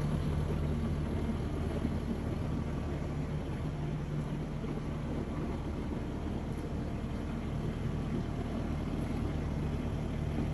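An engine idling steadily, a low, even hum that does not rise or fall.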